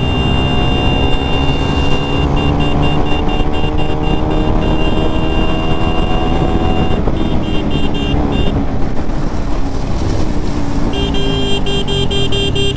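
Motorcycle engine running at speed with heavy wind rush past the bike. Three times there are runs of rapid, pulsed high-pitched beeping, about five pulses a second, the last and loudest near the end.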